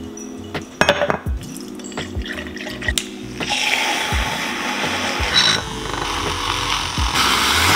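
A handheld battery milk frother whirring in a glass of milk, starting about three and a half seconds in and stopping near the end, with a few light clinks of glassware before it.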